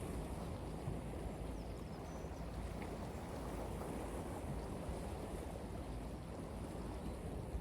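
Sea waves washing onto a beach: a steady, low rush of surf.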